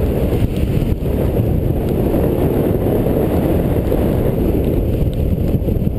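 Steady low rush of airflow buffeting the microphone of a paraglider pilot in flight.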